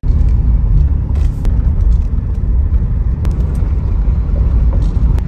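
Steady low rumble of a Ford vehicle driving, heard inside the cabin: engine and road noise.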